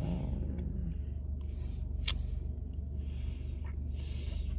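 Low steady hum inside a parked car's cabin, with a single faint click about two seconds in.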